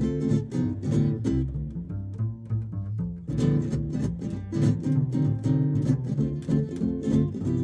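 A small acoustic jazz group playing: a nylon-string guitar picked and strummed alongside an archtop guitar, over a plucked upright double bass. The playing thins out for about a second around two seconds in, then fills out again.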